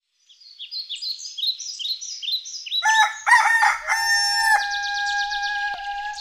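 Bird chirps, a quick falling call repeated about three times a second, then from about three seconds in a flute playing long held notes.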